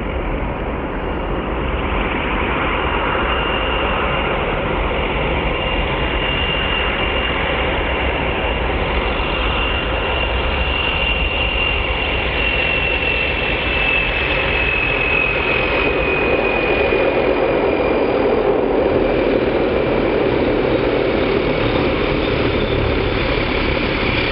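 Allison 250 turboprop engine of a Pocket Rocket light aircraft running as the plane rolls across grass toward and past the listener: a steady high turbine whine over a dense propeller rumble. The whine drifts a little lower in pitch in the second half as the sound grows slightly louder.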